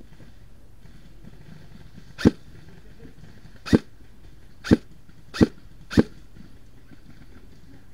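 An airsoft rifle firing five single shots, each a sharp crack with a brief lead-in, coming quicker toward the end.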